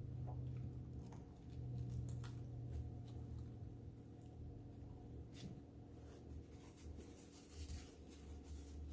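Faint close-miked chewing of a turkey bacon BLT sandwich: soft wet mouth clicks and smacks over a low steady hum.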